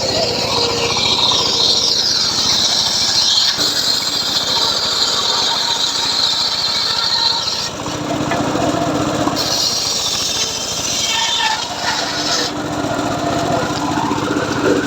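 Homemade circular saw cutting teak wood, the blade giving a high-pitched whine through the cut. The whine runs for about seven and a half seconds, drops off, then comes back more weakly a couple of seconds later.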